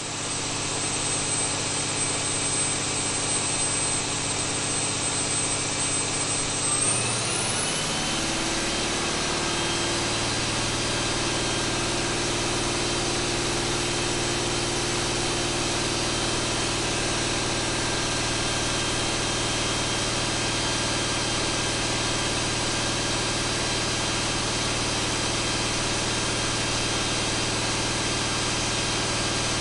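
John Deere 8.1-litre inline-six marine turbodiesel running under load on an engine dynamometer. About seven seconds in its pitch rises as it speeds up from about 1,900 to 2,300 rpm, with a high whine rising with it. It then holds steady at full power, about 330 hp.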